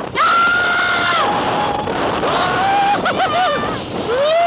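Roller coaster riders screaming and whooping: several long, held cries that overlap, one arching up and falling near the end, over the noise of the moving ride.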